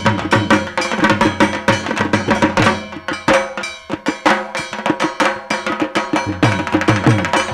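Dhak, the Bengali barrel drum of Durga Puja, beaten with sticks in a fast, dense, driving rhythm, here the Dashami drumming. The beat thins out briefly a little past the middle, then picks up again at full pace.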